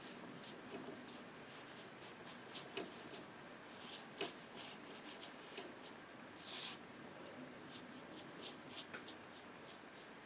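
Faint, irregular taps and light scrapes of a paintbrush working paint on paper, with one slightly longer scrape about six and a half seconds in.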